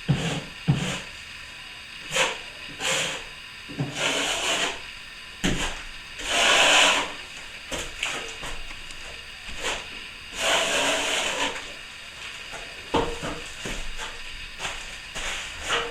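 Steel plastering trowel scraping and polishing freshly skimmed plaster on a ceiling joint: short scraping strokes and sharp knocks, with two longer hissing sweeps of about a second each around the middle.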